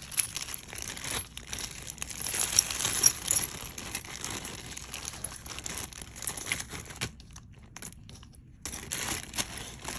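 Clear plastic zip-top bag crinkling as a handful of small metal jewelry pieces is dropped into it, with light metallic clinks. The handling is loudest about two and a half to three seconds in, stops for about a second and a half around seven seconds in, then starts again.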